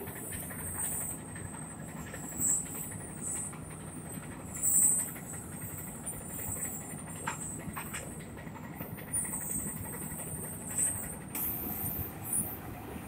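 Belt conveyor carrying filled cement bags over steel roller idlers, running with a steady mechanical rumble and a high whine. Louder knocks come about two and a half seconds in and again near five seconds, with a few lighter clicks later.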